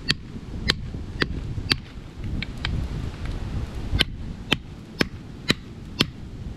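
Hatchet striking the shell of a cooked spider conch to crack it open: a run of sharp knocks, about two a second, with a pause of just over a second partway through.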